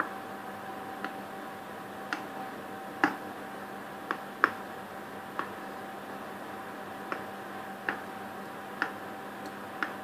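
Sharp light clicks or taps, about one a second and somewhat uneven, over a faint steady hum.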